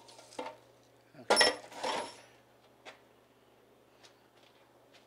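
Steel machine-shop tooling clinking as it is handled at the milling machine: two sharp, ringing metal clinks about a second and a half in, then a few light taps.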